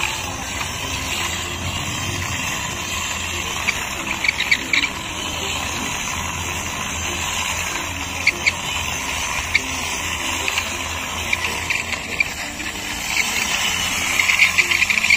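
Plastic toy army truck pushed by hand along rough concrete: its wheels give a steady gritty rolling noise, with sharp crackles now and then that grow thicker near the end.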